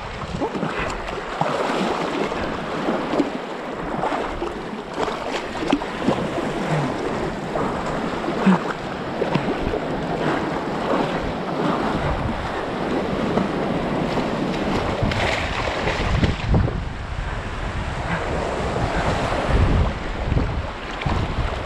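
Sea waves washing onto the shore, rising and falling in a steady rush, with wind gusting on the microphone and rumbling through the second half.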